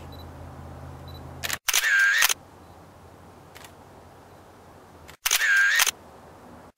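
Camera shutter firing in two short bursts of rapid clicks, about three and a half seconds apart, each much louder than the background.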